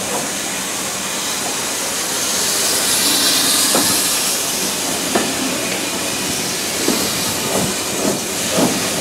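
A steam-hauled train moving slowly out of a station, heard from an open carriage window: a steady hiss of steam from the locomotive, with a few short knocks that come closer together near the end.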